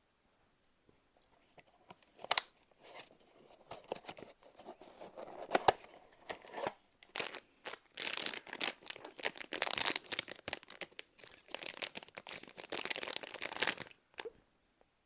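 A blind box's packaging being opened by hand: two sharp snaps about two and five seconds in, then several seconds of tearing and crinkling of the wrapping, which stops shortly before the end.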